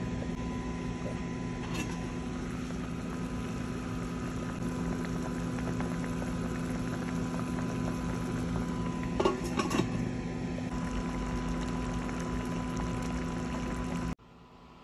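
Pork and chicken adobo simmering in a stainless steel pot, the soy-and-vinegar sauce bubbling steadily over a constant low hum. Brief metal clinks from the pot lid come about two seconds in and again, louder, around nine seconds; the sound cuts off sharply just before the end.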